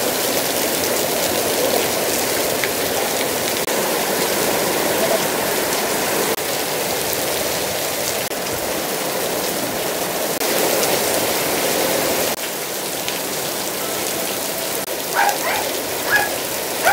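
Heavy rain pouring down on a paved courtyard, a steady, even hiss.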